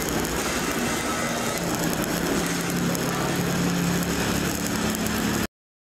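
Electric arc welding on a steel pressure vessel: a steady hiss and crackle from the arc, under a low hum. The sound cuts off abruptly near the end.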